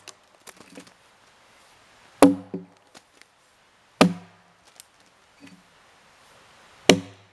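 Phantom Bevel Jersey-pattern axe with a 3.5-pound head chopping into a felled white ash log, bucking it into sections. There are three heavy strikes about two seconds apart, each with a short ringing thud and a few faint ticks after.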